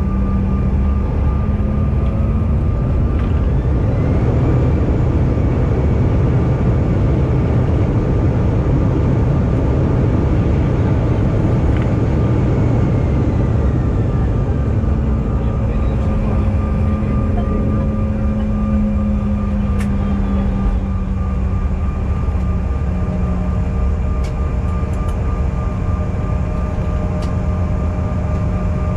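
The CRJ-1000's rear-mounted GE CF34 turbofans running, heard inside the cabin: a loud, steady low rumble under a constant high whine, with some engine tones sliding in pitch around the middle.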